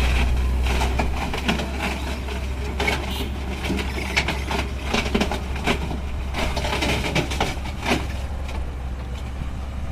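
Heavy earthmoving machine's engine running with a steady low drone, over a scattered series of sharp knocks and clanks.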